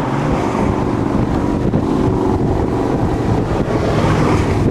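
Strong wind blowing across the microphone, loud and steady.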